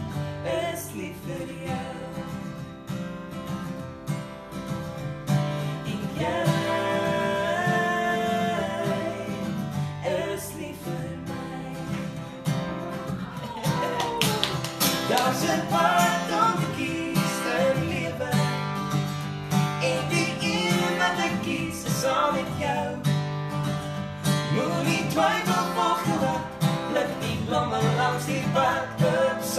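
A man and a woman sing a slow duet in Afrikaans, accompanied by a strummed acoustic guitar.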